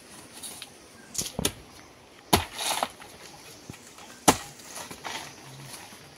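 A banana plant's soft stem being chopped down: a few sharp strikes, two of them loud and about two seconds apart, with a brief rustle of leaves and fibres after the first loud one.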